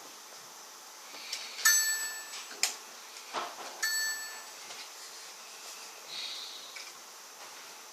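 Two electronic beeps from a Toshiba Satellite P745-S4320 laptop, each just under a second long and about two seconds apart, with a couple of short clicks between them. This is the unexplained beeping the owner reports, which comes along with the wifi switching off and the volume changing by themselves.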